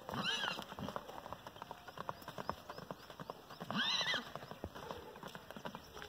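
Two-month-old filly running loose on dry dirt, her hoofbeats patting quickly and unevenly, with two short high whinnies, one right at the start and one about four seconds in, each rising and falling within about half a second.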